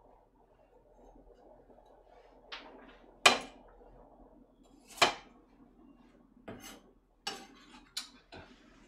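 Kitchen knife knocking on a cutting board while slicing garlic cloves: a handful of separate sharp knocks roughly a second apart, the loudest about three seconds in.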